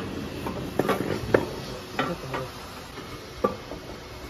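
Metallic clinks and knocks, about seven in the first three and a half seconds, as a steel auger filling screw is fitted into the hopper outlet of a powder packaging machine, over a steady background hum.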